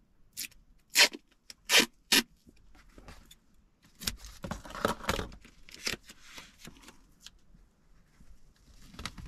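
Duct tape ripped off the roll in four short, loud pulls within the first couple of seconds, then softer rustling and scraping as the tape is handled and pressed down onto cardboard.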